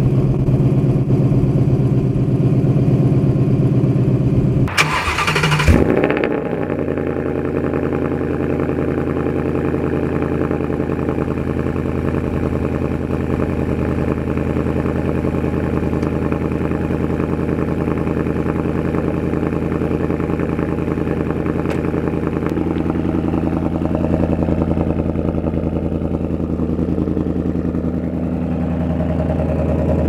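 Ford Mustang GT's 5.0-litre Coyote V8 through a Roush axle-back exhaust, running steadily for the first few seconds. About five seconds in comes a cold start: a short burst as the starter cranks and the engine catches with a brief flare. It then settles into a steady cold-start idle.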